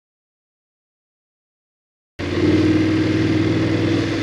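Dead silence for about two seconds, then the BMW F850GS's parallel-twin engine cuts back in abruptly, running steadily under way.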